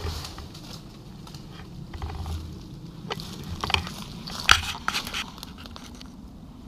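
Footsteps crunching through dry leaf litter and twigs on a forest floor, irregular crackles and sharp clicks with dull bumps, the loudest click about four and a half seconds in.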